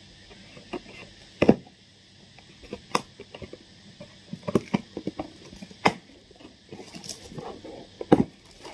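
Scissors snipping and cutting into a cardboard parcel, with handling and rustling of the box: a series of irregular sharp clicks, the loudest about a second and a half in and near the end.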